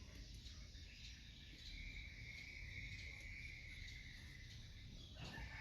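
Faint, steady, high-pitched insect chirring over a low background rumble, with a slight drop in pitch about five seconds in.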